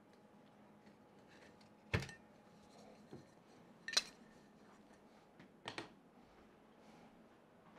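Aluminum printer parts being handled and set down in a quiet room: a few sharp metallic clacks, about two seconds in, about four seconds in and a quick double clack near six seconds, with a soft knock between.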